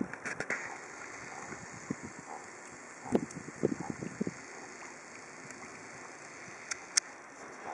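Wind buffeting the microphone in short low rumbles, clustered at the start and again about three to four seconds in, over a steady outdoor hiss. Two sharp clicks come near the end.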